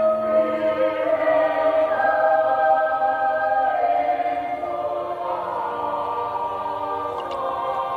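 A choir singing slow, held chords without accompaniment, growing quieter in the second half.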